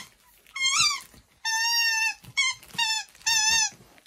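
Alaskan Malamute puppy whining: a run of about five high-pitched squeals, the longest held for about half a second.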